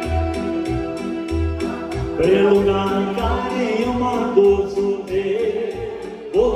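Live band music: sustained chords over a steady, regular bass beat. About two seconds in, a singer's voice comes in with a wavering, ornamented melody.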